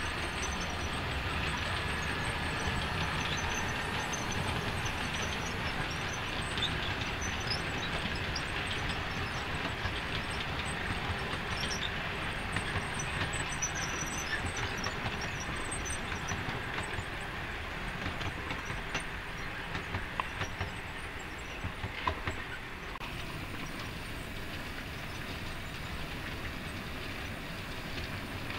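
OO gauge model train running on the layout's track: a steady whirr of the locomotive and rolling wagons, with light clicks of the wheels over the rail joints, a little quieter near the end.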